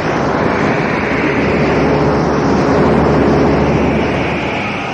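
Military radio channel hiss and static between transmissions: a loud, steady noise across all pitches with a few faint steady tones underneath.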